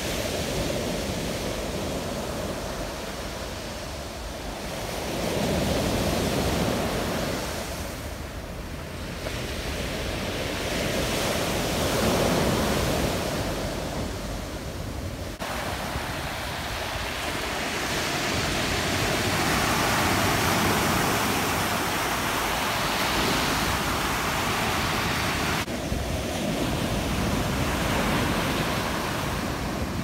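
Mediterranean surf breaking and washing up a pebble beach, swelling and easing every few seconds. The sound changes abruptly twice, about halfway through and again near the end.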